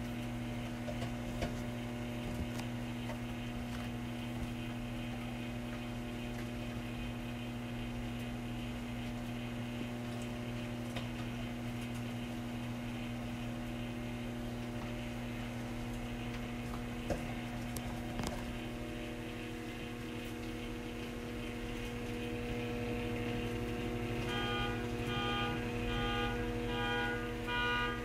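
Hamilton Beach microwave oven running mid-cycle with a steady electrical hum. From about 24 seconds in, a car's beeping repeats about twice a second over it.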